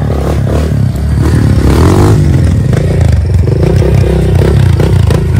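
Dirt bike engine running and revving as the bike is ridden off, its pitch rising and falling about two seconds in.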